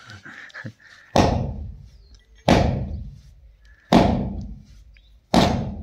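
Combine harvester cutter motor's metal housing banged down four times onto a wooden block, its shaft end against the wood, to knock the shaft and bearing loose. Each heavy thud comes about a second and a half after the last and rings briefly.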